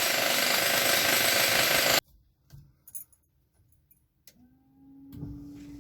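A loud, steady hiss lasts about two seconds and cuts off abruptly. A few faint clicks follow, and a steady low hum starts near the end.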